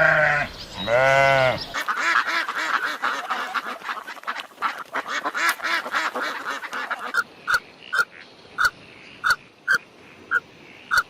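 Two long bleats at the start, then a flock of ducks quacking in a dense, overlapping chatter. After about seven seconds this thins to single short quacks, roughly one and a half a second.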